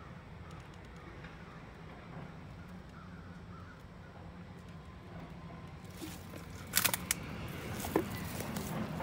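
Distant crow caws over a steady low background rumble. Near the end come a few sharp crunches and snaps of footsteps over debris and dry brush.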